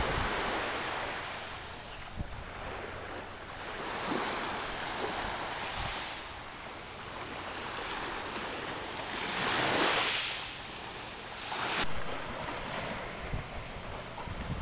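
Small sea waves washing onto the shore, swelling and falling back every few seconds, the biggest wash about ten seconds in, with wind buffeting the microphone.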